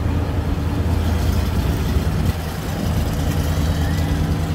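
The engine of a 1922 Cadillac open touring car, running with a steady low hum as the car rolls slowly past at parade pace.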